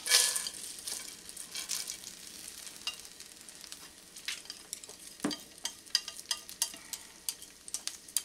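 Dried chilli pieces and Sichuan peppercorns tipped into a nonstick frying pan of warm oil, landing with a brief rattling rush at the start. A faint sizzle and many light clicks and taps follow as chopsticks scrape the last seeds and peppercorns off a ceramic plate into the pan. There is one louder knock about five seconds in.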